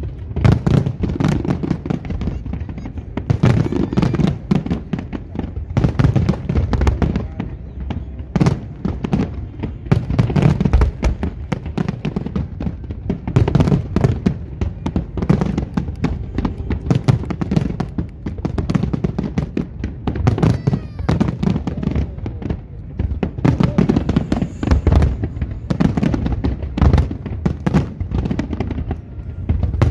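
Large aerial fireworks display: shells bursting in a dense, continuous barrage of bangs in quick succession, with no pause.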